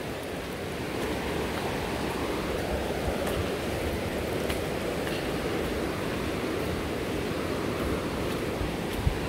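Steady rush of fast-flowing floodwater, with wind buffeting the microphone in low gusts.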